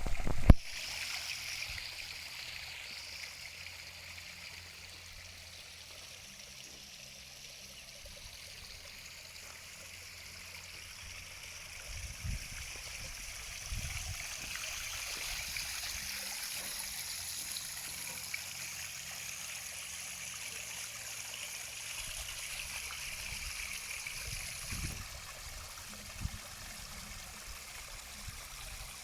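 Water running and trickling steadily down a small stacked-stone garden waterfall into its stream bed. A sharp knock sounds right at the start, and a few soft low thumps come later.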